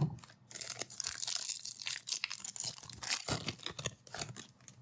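A thump, then a trading-card pack's wrapper being torn open and crinkled in the hands, a dense crackling rustle that thins out near the end.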